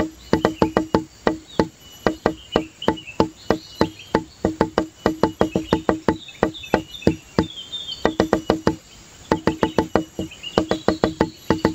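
Background music: a quick, even run of short percussive notes, about five a second, in phrases broken by brief pauses, with short high warbling notes over it.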